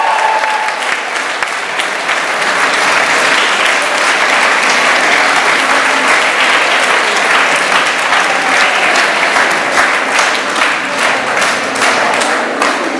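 Audience applauding: dense, steady clapping that breaks up into more separate claps in the last few seconds and thins out at the end.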